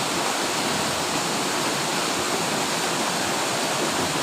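Steady rush of fast-flowing water in a mountain river.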